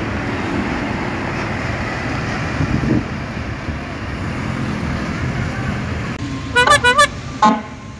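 Steady road traffic noise, then, about six and a half seconds in, a bus's multi-tone 'telolet' horn sounds a quick run of about four wavering notes.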